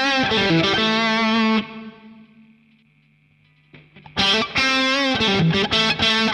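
Electric guitar, a Fender Stratocaster, played through a Boss Katana 50 MkII amp with its variation button engaged for extra gain, recorded direct over USB. A short distorted phrase of picked notes rings out and fades after about a second and a half. After a near-silent gap, a second phrase starts about four seconds in.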